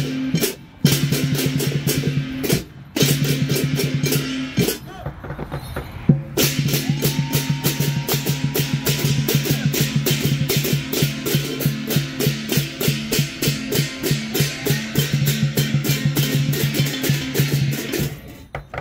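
Lion dance percussion: drum, cymbals and gong beating a fast, driving rhythm, with short breaks in the first few seconds and a longer lull about five seconds in before it picks up again.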